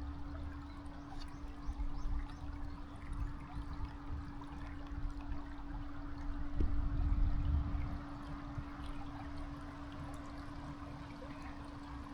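Running water, a steady trickling flow, over a steady low hum and a low, uneven rumble that swells about seven seconds in.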